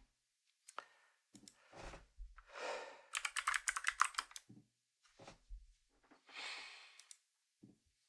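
Typing on a mechanical keyboard: scattered single key clicks, then a quick burst of about a dozen keystrokes in just over a second around the middle. A few soft, hissing swells come between the clicks.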